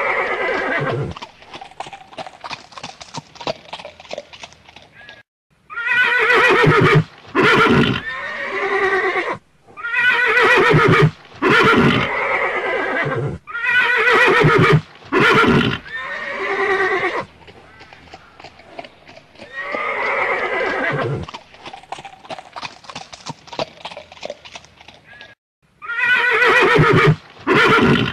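Horse whinnying and neighing: long wavering whinnies, some falling in pitch, in groups of a few seconds with quieter pauses between, the same pattern recurring several times.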